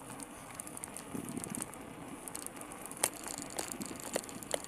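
Bicycle rolling over rough, broken asphalt: steady tyre and wind noise with scattered sharp clicks and rattles as the road shakes the bike, a few louder ones in the second half.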